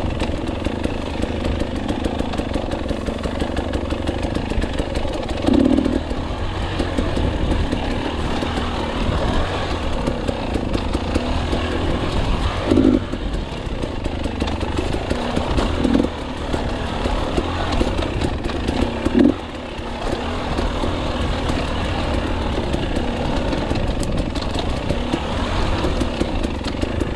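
KTM 300 two-stroke enduro motorcycle engine running steadily while riding a trail, with a few brief louder bumps.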